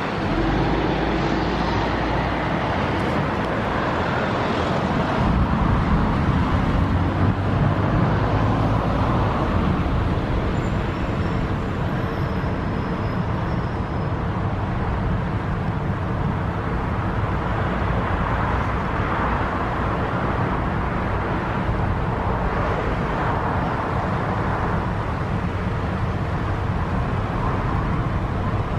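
Thunderstorm: a steady rushing roar with deep low rumbling that swells from about five seconds in and eases after about ten seconds.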